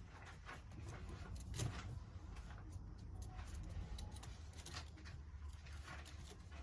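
Scattered light clicks and rustles over a low steady hum, the loudest click about one and a half seconds in: kittens scrambling and playing in and out of a basket.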